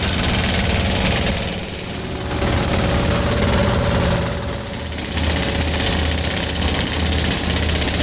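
Boat engine running steadily with a low drone under a constant hiss. The sound dips briefly twice.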